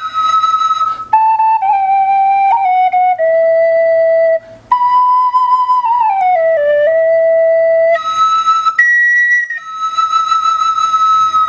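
Wooden svirel, a Russian duct flute in D major, played solo: a slow melody of held notes stepping downward, one note gliding down into the next, with a brief breath about four and a half seconds in and a long high note held near the end.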